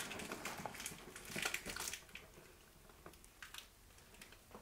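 Faint handling noise: soft rustling and a few light clicks from hands working a leather handbag and its fur pom-pom bag charm, busiest in the first two seconds.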